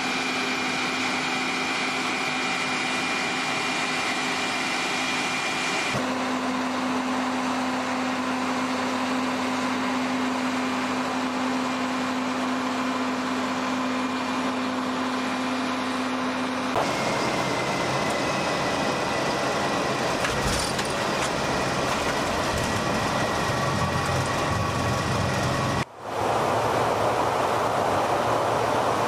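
Steady jet aircraft noise with a held high whine and a lower hum, changing abruptly at several cuts. Near the end it becomes the steady rush of air and engines inside a KC-135 Stratotanker's boom operator pod in flight.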